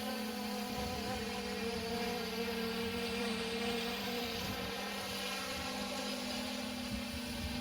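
3DR quadcopter drone in flight, its propellers giving a steady buzzing whine with pitch that drifts only slightly.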